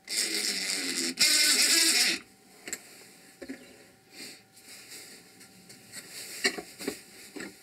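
Power driver running for about two seconds, driving a wood screw into a wooden block, getting louder for its last second as the screw bites and seats. Then a few light knocks and clicks as the block is handled.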